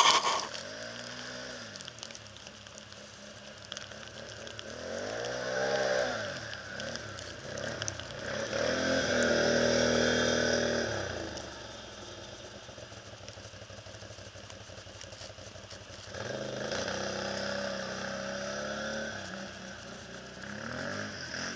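Can-Am Renegade 500 ATV's single-cylinder engine revving up and down as it rides through snow. It is loudest as the quad passes close by about nine to eleven seconds in, with a shorter rev before that and another surge near the end.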